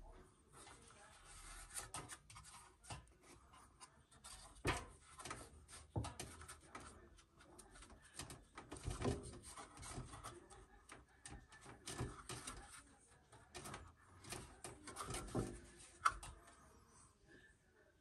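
Hands rubbing and knocking against the stainless steel drum and parts inside a Bosch tumble dryer: irregular scrapes and soft clicks.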